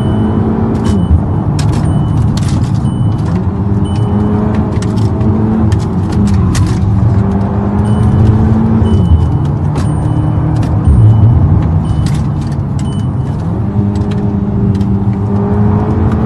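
Car engine and road noise heard from inside the cabin at highway speed. The engine note steps up and down several times as the car accelerates and eases off. A short high beep repeats on and off, with scattered clicks.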